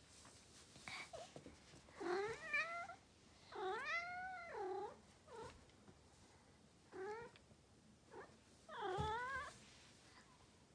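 Norwegian Forest Cat meowing about six times, short calls that rise and fall in pitch, with one longer drawn-out meow about four seconds in.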